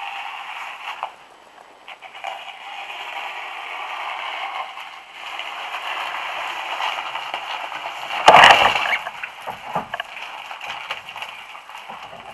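A kayak and its deck gear scraping and rubbing against the underside of a low concrete bridge as it is hand-pulled through the gap, with a loud knock about eight seconds in.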